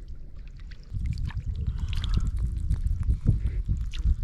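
Shallow water and wet mud sloshing and trickling, with a low rumble and scattered clicks starting about a second in.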